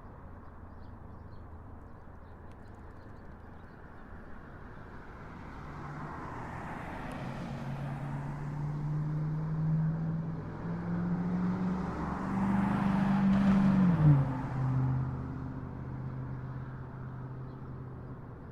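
Street traffic with a steady low rumble. From about five seconds in, vehicles build up and pass close, with tyre noise swelling twice. The loudest passes about fourteen seconds in, its engine note dropping in pitch as it goes by, then fades away.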